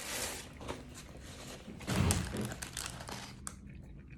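Eating and handling noises over a takeout meal: crinkling and rustling, with a dull thump about two seconds in.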